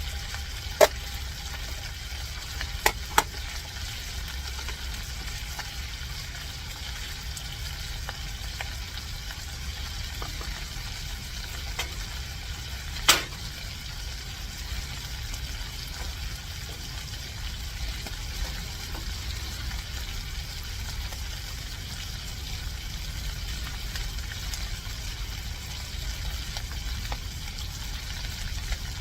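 Dried fish frying in hot oil in a pan, a steady sizzle, with a few sharp clicks, the loudest about 13 seconds in.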